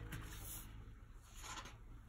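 Faint rustle of a thick paper page in a spiral-bound photo album being handled and lifted to turn, with a soft swish about half a second in and a louder one near the end.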